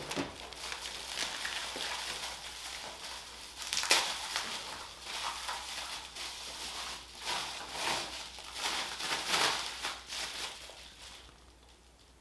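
Packaging rustling and crinkling as a part is unwrapped by hand, with a sharp tap about four seconds in; the handling dies away near the end.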